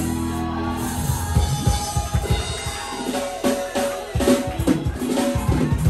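Live church praise music: a drum kit beating out a rhythm of kick and snare hits over sustained low chords.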